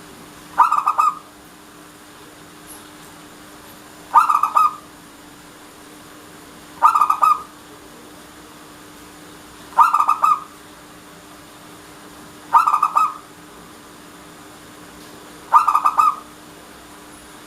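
Zebra dove (perkutut) cooing: six short, stuttering coos, each about half a second long, repeated roughly every three seconds.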